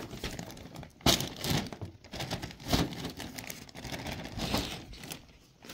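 Crinkly fabric pop-up cat tunnel rustling and crackling in irregular bursts as a cat scrambles into it, the loudest about a second in.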